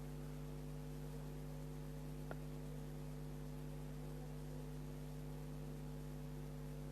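Steady electrical mains hum with a few overtones over faint hiss, with one small click a little past two seconds in.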